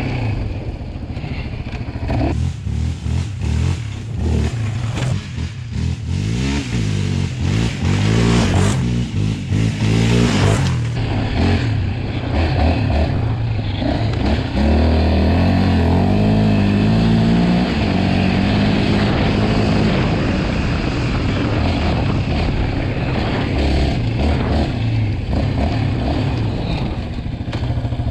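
2019 Yamaha Raptor 700R sport quad's single-cylinder four-stroke engine, fitted with an aftermarket Monster exhaust, revving up and down as it is ridden on dirt trails. The sound is choppy for about the first ten seconds, then runs more steadily, with the pitch rising and falling.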